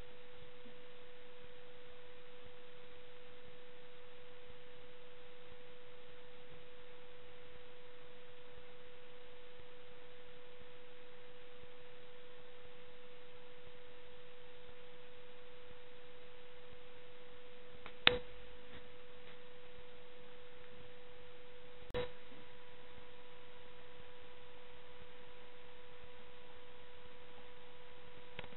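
A steady, even electronic hum tone over faint hiss, with two sharp clicks about four seconds apart past the middle; after the second click a fainter, higher tone joins the hum.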